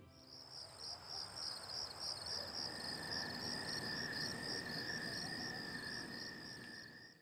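Crickets chirping in a steady pulsing rhythm, about five chirps a second, with a second steady high trill joining about two seconds in: a night-time cricket ambience. It fades in at the start and cuts off abruptly at the end.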